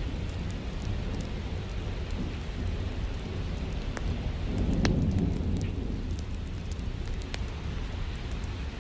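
Steady rain, with a low rumble of thunder swelling about halfway through and fading, and scattered sharp crackles from a fireplace fire.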